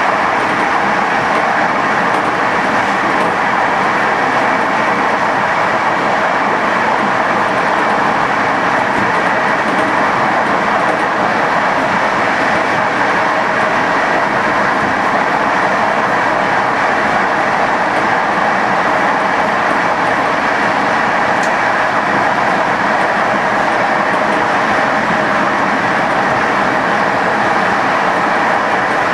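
Passenger train running along the rails at speed: a steady, loud rolling rumble of wheels on track.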